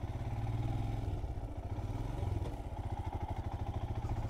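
Royal Enfield Himalayan 411's single-cylinder engine running at low speed with an even pulsing exhaust beat, as the motorcycle rides slowly over a rutted dirt track. The engine note shifts slightly about two seconds in.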